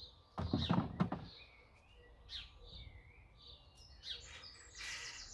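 Birds singing and chirping in the background, with short whistles and chirps that become busier near the end. A brief clatter of handling noise about half a second in is the loudest sound.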